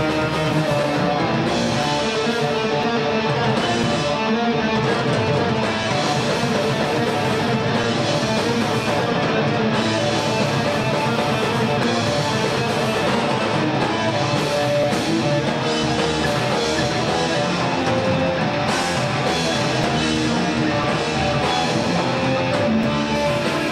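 Thrash metal band playing live: loud distorted electric guitars over a drum kit, with a steady level throughout.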